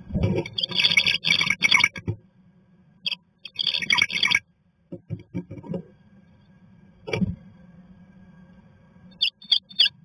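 A tree swallow shuffling about in a wooden nest box: bursts of scraping and rustling as its feet and wings brush the pine-needle nest and the cedar walls, a few dull thumps and one sharp knock, and three short high-pitched sounds near the end.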